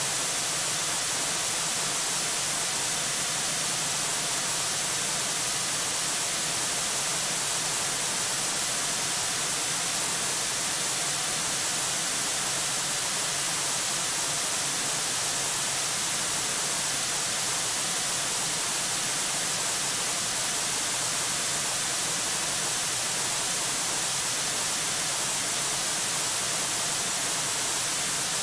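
Steady static hiss from the eagle cam's livestream audio, even and unchanging, strongest in the high treble.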